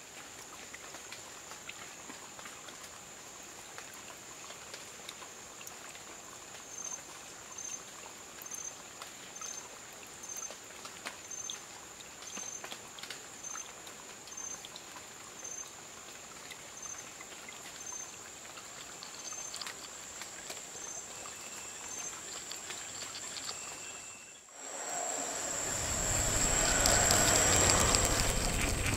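Nature-like soundscape: a steady high insect-like drone with a short chirp repeating about once a second over a soft hiss. About 25 s in it switches suddenly to a much louder crackling patter like rain.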